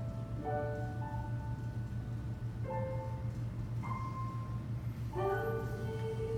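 Slow, sparse live music from an electric keyboard and a pipa: a few sustained notes every second or two over a steady low hum. About five seconds in, a voice slides up into a long held sung note.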